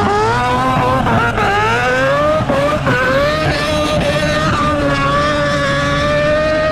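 Four-rotor rotary engine of a Mazda RX-7 drift car at high revs, the pitch swinging up and down with the throttle for about three seconds, then held steady at a high pitch.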